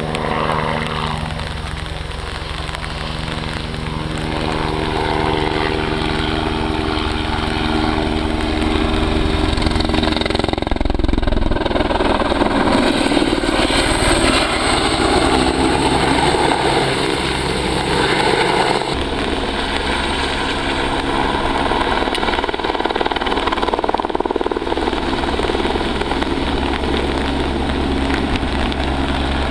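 Aérospatiale AS 350 Ecureuil single-turbine helicopter flying low with a bucket slung on a long line: continuous rotor and turbine sound, with steady tones at first, growing louder and noisier through the middle stretch, then settling back to a steadier sound.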